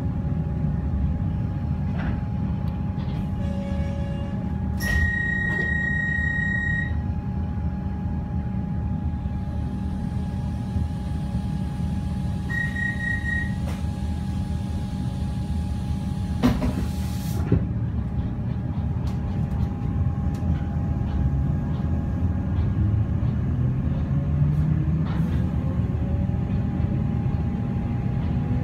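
Electric suburban train heard from inside the carriage while standing at a platform, with a steady low rumble. A long high electronic tone sounds, then a shorter one, and about halfway through there is a brief hiss of air. The train then pulls away, its motor whine rising steadily in pitch as it gathers speed.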